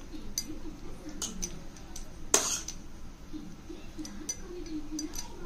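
Steel spoon clinking against a stainless-steel bowl and scraping a soft vegetable filling across a slice of bread: scattered light clicks, with one sharper clink a little past halfway.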